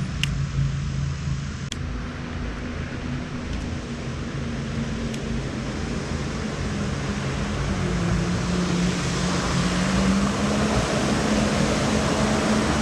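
Jet ski engine running on the water, growing steadily louder as it draws near, its pitch rising about eight seconds in. A few light clicks in the first few seconds.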